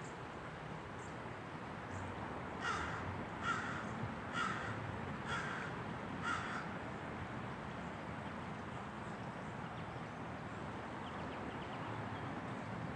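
A bird calling five times in a row, short calls about a second apart, over steady outdoor background noise.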